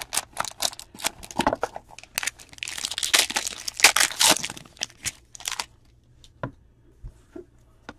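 Trading-card pack wrapper being torn open and crinkled by hand, with handling clicks and rustles. The tearing is loudest from about two and a half to four and a half seconds in, and after that only a few sparse clicks remain.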